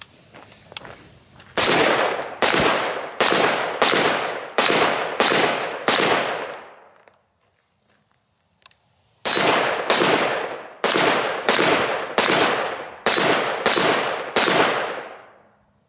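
Semi-automatic AR-style rifle fired in two steady strings of single shots, about seven and then about eight, spaced a little under a second apart, each shot echoing off the range. There is a pause of about three seconds between the strings.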